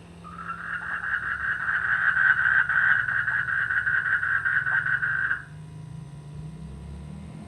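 A frog giving one long, rapidly pulsed trilling mating call for about five seconds, which cuts off suddenly. A low steady hum runs underneath.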